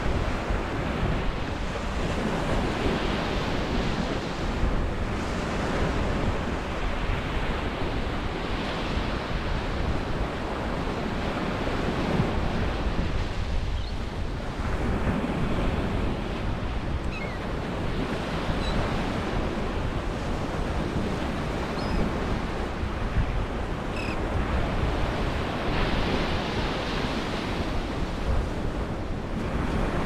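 Ocean surf washing onto a sandy beach, breakers swelling and easing every few seconds, with wind on the microphone. A few faint short bird calls come in past the middle.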